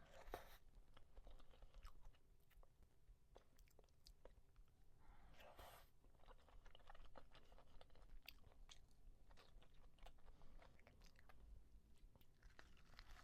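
Faint close-up eating sounds: a person chewing, with scattered small mouth clicks and smacks.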